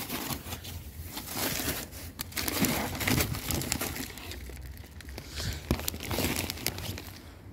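Plastic bag and foam wrapping crinkling and rustling irregularly as a motorcycle windscreen is handled and pulled out of its cardboard box.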